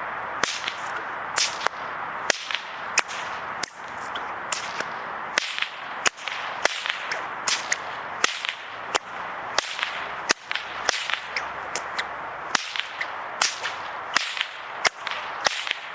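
Bullwhip cracked over and over in a continuous flow drill: sharp cracks about two a second, often in quick pairs, with the whoosh of the swinging whip between them.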